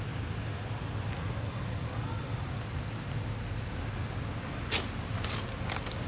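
Steady low outdoor background rumble, with a few short sharp crackles near the end.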